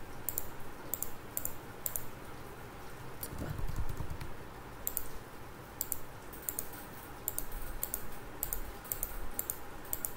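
Computer mouse clicking: a dozen or more sharp clicks at an uneven pace, many in quick press-and-release pairs, coming faster in the second half as points are placed one by one. A dull low thump about three and a half seconds in.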